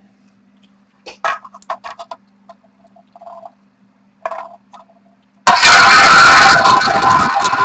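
Roulette wheel spun and its ball launched: a few light clicks and taps, then about five seconds in a sudden, loud, continuous rolling rattle of the ball circling the wheel. A low steady hum runs under the quiet part.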